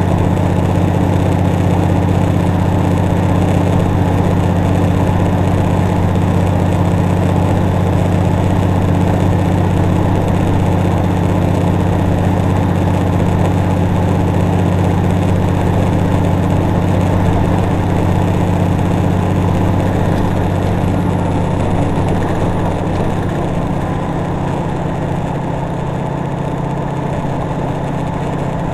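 Cummins N14 diesel of a 379 Peterbilt truck running steadily. A faint high turbo whistle falls in pitch a little over two-thirds of the way in, as the engine note eases off slightly.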